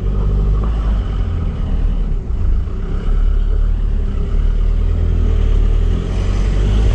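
Motorhome engine running steadily while driving slowly, a constant low drone.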